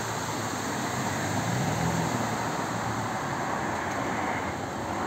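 Street traffic: a steady rush of cars and tyres on the road, with a car engine humming past close by about one to two seconds in.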